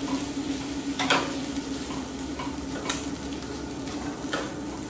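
Spatula stirring chicken and green beans in a sizzling skillet on a propane camp stove, with a few sharp clicks of the spatula against the pan over a low steady hum.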